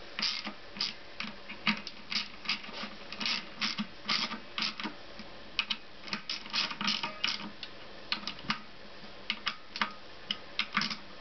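Hand ratchet wrench clicking in short, irregular bursts as the clutch spring bolts are tightened by hand, a little at a time on each bolt.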